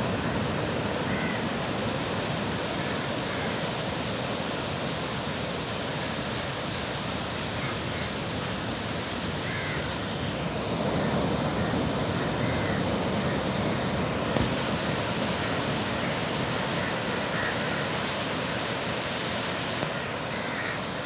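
Surf washing steadily onto a beach, with a few short bird calls over it.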